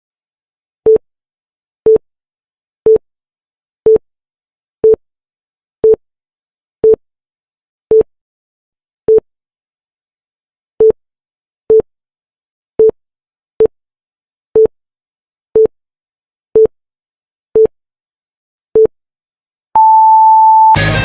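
Electronic countdown-timer beeps: short, low, identical beeps about once a second, then one longer, higher beep as the countdown reaches zero. Loud rock music cuts in right at the end.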